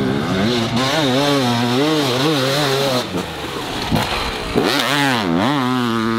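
Two-stroke enduro dirt bike engine, revs rising and falling quickly over and over as the throttle is worked, then dropping low about five seconds in and climbing again.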